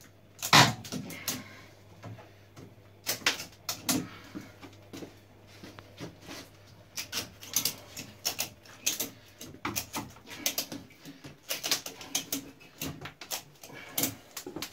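Ratchet strap being cranked tight, its ratchet clicking, while the glued wooden shield panels bent over car tyres creak and crack under the strain. The clicks and cracks come irregularly, sparse at first with the loudest about half a second in, then thick and rapid through the second half.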